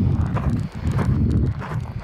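Footfalls on the ground, a few a second, over a steady low rumble of wind on the microphone.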